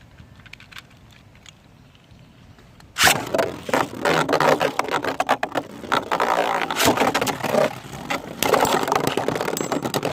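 Two Beyblade tops, a 3D-printed Drakken and an Achilles, launched about three seconds in, then spinning and colliding in a stadium with a dense, rapid clatter and scraping.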